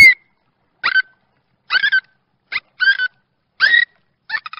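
Dolphin making short squeaky whistle calls: about six separate calls, each well under half a second, with silence between them. Near the end a quicker run of chirps begins.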